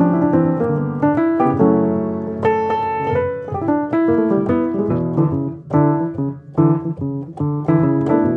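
Background piano music: chords and melody notes struck one after another at a steady pace.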